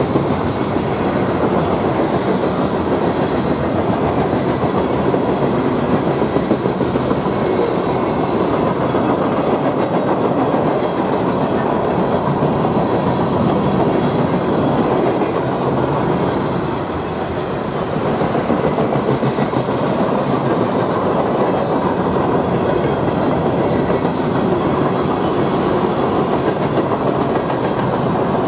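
Freight train cars rolling past at speed: a steady, loud rumble of steel wheels on the rails, with a brief dip in loudness about two-thirds of the way through.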